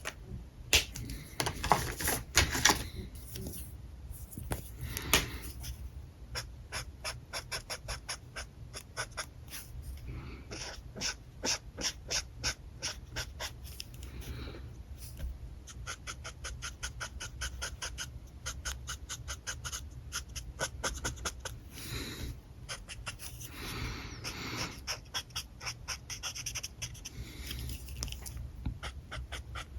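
Alcohol marker nibs rubbing across paper in quick, short repeated strokes, several a second, with a few louder, longer strokes in the first few seconds. A faint steady low hum runs underneath.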